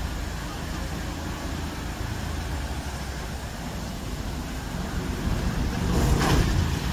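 Engine of an eight-wheeled amphibious vehicle running steadily as it drives across a gravel riverbed, heard at a distance as a low rumble. About six seconds in, a brief, louder rush of noise rises over it.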